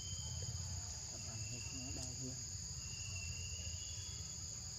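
Steady insect chorus in the forest: a continuous high-pitched shrill drone in two steady tones, with a few short fainter high trills on top, over a low steady rumble.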